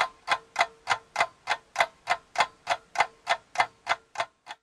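Ticking clock sound effect: even, sharp ticks about three times a second, growing fainter near the end.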